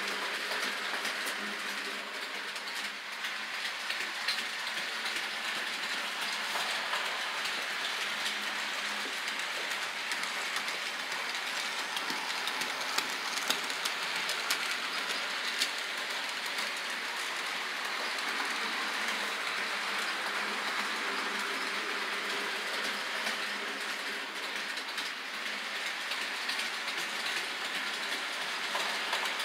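Model train running on a layout: the wheels and cars clatter and click steadily over the track, with the locomotive's small electric motor running, and a few sharper clicks around the middle as the train passes closest.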